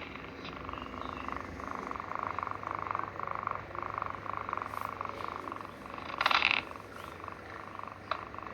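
Sleeping kitten snoring in a steady pulsing rhythm, with a brief louder noise about six seconds in.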